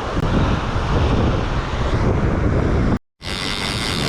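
Wind buffeting the microphone over breaking surf. After a sudden cut near the end, a heavy fishing reel starts winding in with a steady ratcheting whir.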